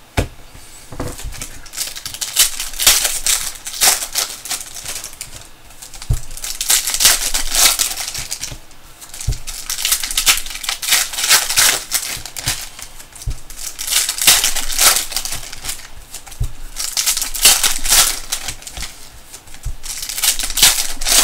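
Foil trading-card pack wrappers crinkling and tearing as packs are opened, a long run of irregular crackles and rustles with a few soft knocks.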